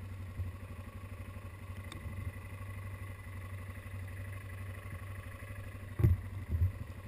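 ATV engine idling steadily, a low even hum. Two short thumps about six seconds in.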